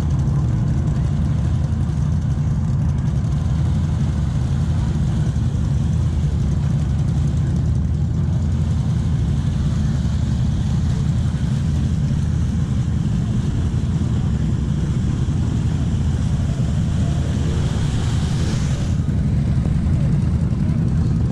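Off-road vehicle engine running steadily, a constant low-pitched engine sound with no clear revving.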